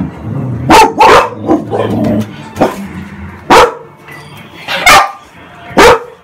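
Pet dog barking: a string of loud, sharp barks at uneven intervals, two of them in a quick pair about a second in.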